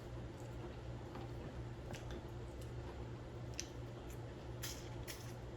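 Faint scattered clicks and cracks of seafood being handled and eaten by hand, a few sharp ones spaced about a second apart, over a steady low electrical hum.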